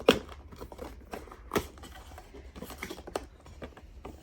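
Cardboard blind-box packaging being opened by hand: a string of sharp clicks and taps, the loudest right at the start and another about a second and a half in, with lighter ticks between.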